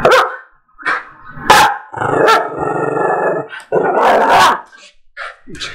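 Small fluffy dog barking and growling in play: a string of barks with a longer growl near the middle.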